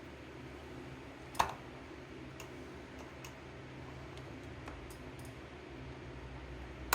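Faint, scattered clicks of a tool on metal, with one sharper click about a second and a half in, as a stubborn C-clip is worked off a Sturmey-Archer internal gear hub. A steady low hum sits underneath.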